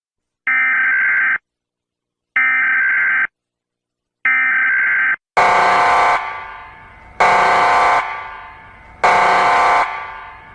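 Emergency Alert System alert: three short electronic data bursts about two seconds apart, then three loud buzzing alarm blasts, also about two seconds apart, each fading away in a long echo.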